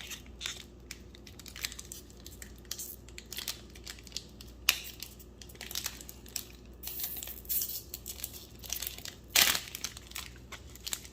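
Crinkly plastic wrapping of a trading card pack being torn open and handled: an irregular run of crackles, with two sharper snaps about five seconds in and near the end.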